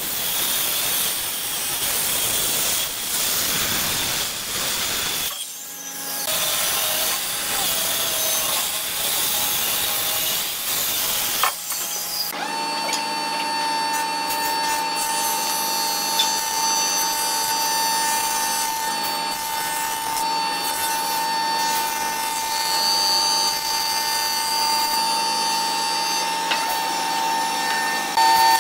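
Woodworking power machinery cutting wood: about twelve seconds of rough, noisy cutting with a short drop about five seconds in, then a steady whine of a machine running.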